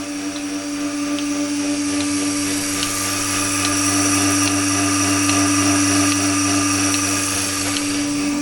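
Milking machine running: the steady hum of its vacuum pump with the pulsator clicking evenly, a little more than once a second. The hum gets somewhat louder about two seconds in.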